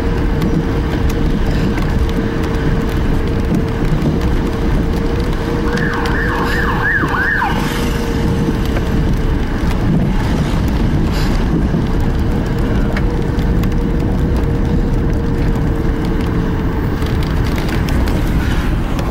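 Steady road and engine noise inside a car's cabin, with a short burst of about five quick rising-and-falling siren yelps from the fire engine ahead, about six seconds in.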